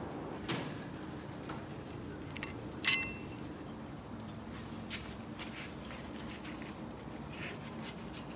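A few light metal-on-metal clinks as a steel pedal arm is handled and set into a bench vise. The loudest, with a short metallic ring, comes about three seconds in.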